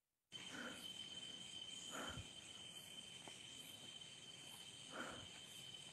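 Night insects trilling in one steady, unbroken high tone over faint background hiss; the sound cuts in abruptly a moment after dead silence.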